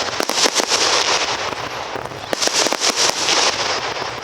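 Aerial fireworks display: a dense crackle of many small pops. It eases briefly near the middle, then comes in a second thick wave.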